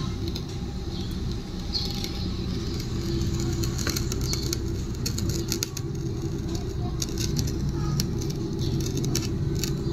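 A steady low motor hum with faint scattered clicks.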